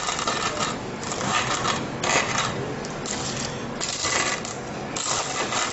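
Wooden rolling pin crushing hardened sugar brittle (crunch) against a stone worktop: a dense crackling and clinking of glassy pieces breaking and scraping under the pin.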